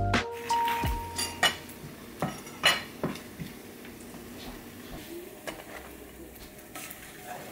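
Kitchen utensils clinking and scraping on plates and a stainless steel frying pan: a few sharp clinks in the first three seconds, then quieter scraping as scrambled eggs are served onto bagels.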